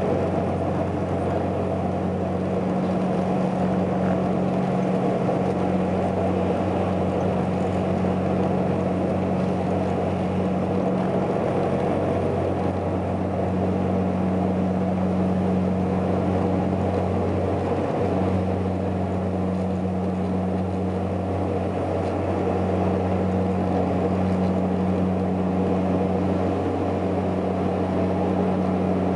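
Cabin noise of a Saab 340B turboprop airliner climbing out after takeoff: the steady drone of its twin General Electric CT7 turboprop engines and propellers, with a deep, even propeller hum under a rushing airflow noise.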